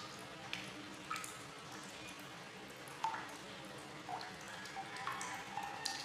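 Water bubbling and dripping: small irregular plops and plinks, each a short pitched blip, about one a second, over a faint steady water hiss.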